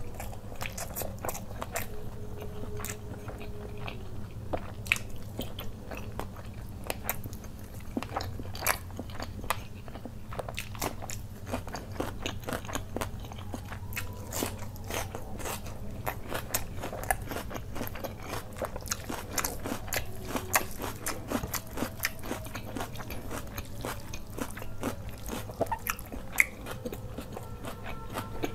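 Close-up mouth sounds of a person eating fried rice and butter chicken with his hands: continuous wet chewing and smacking with many quick clicks, and crunching bites of raw onion.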